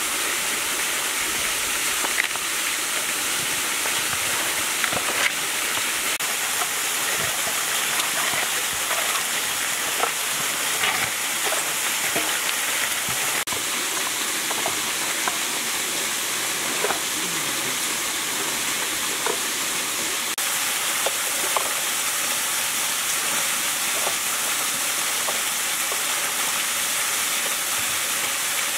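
Steady rushing of a waterfall, with a few faint taps and rustles of hands working herbs into a fish in a metal basin.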